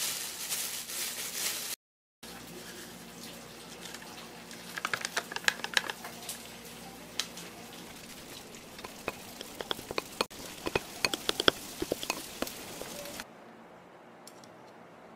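A plastic bag crinkles as seasoned seaweed flakes are shaken out of it onto rice. After a brief cut, a plastic rice paddle mixes the rice in a ceramic bowl, with scattered light clicks and taps that come in quick clusters. Near the end, quieter, a spoon stirs the mixed rice.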